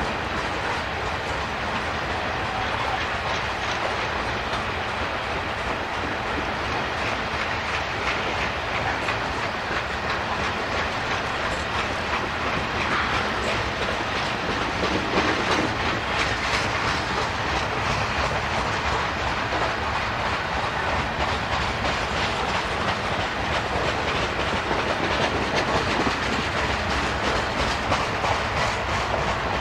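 Freight cars of a Canadian National train rolling past, steel wheels clacking over the rail joints in a steady rumble that grows a little louder about halfway through. The mid-train diesel locomotive coming alongside near the end runs quietly and adds little power.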